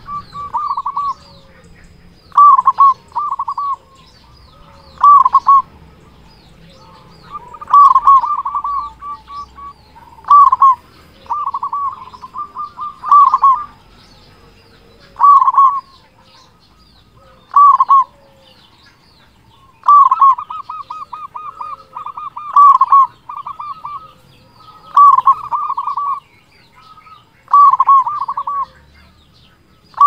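Local zebra dove (perkutut) singing loudly: short phrases of rapid, rolling cooing notes, repeated every two to three seconds.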